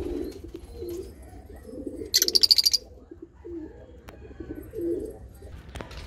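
Pigeons cooing again and again, with one loud, shrill, rapidly pulsing parrot squawk about two seconds in.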